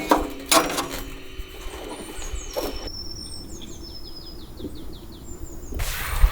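A bird singing a rapid run of short falling notes, with scattered higher chirps, after a few knocks and rustles in the first second.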